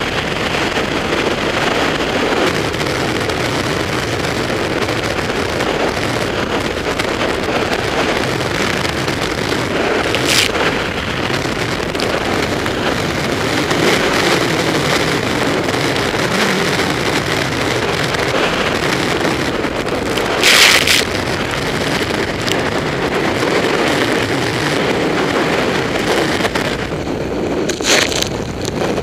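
Wind on the microphone and rushing water as a Zodiac Hurricane rigid inflatable boat runs fast through storm waves. Spray crashes over the boat in brief, louder bursts: about a third of the way in, about two thirds in, and near the end.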